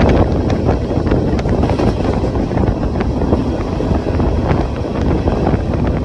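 Freight train rolling at speed: a loud, steady rumble of wheels on rails, with scattered sharp clicks and wind buffeting the microphone.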